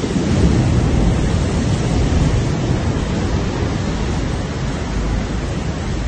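Rough Black Sea surf breaking on the shore in a steady, heavy rush, with wind buffeting the microphone.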